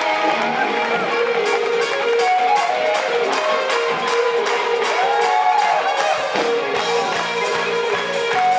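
Live polka-rock band playing, with held accordion notes over guitars and hand-clapping in time with the beat.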